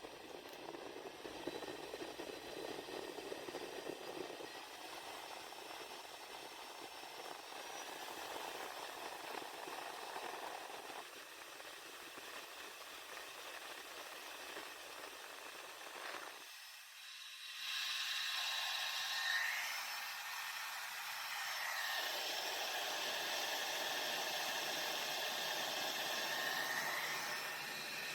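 Mini portable USB fan running: a steady rush of air with a thin high motor whine. The sound shifts in steps several times, getting louder and brighter about two-thirds of the way in.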